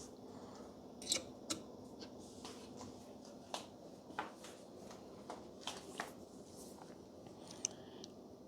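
Faint, scattered light clicks and taps, about eight over several seconds, from handling soldering tools at the bench, over a faint steady low hum.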